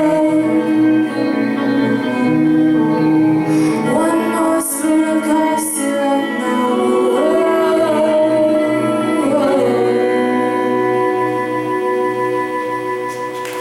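A woman singing long held notes over sustained instrumental accompaniment, with a few sliding notes in the middle: the final bars of a song.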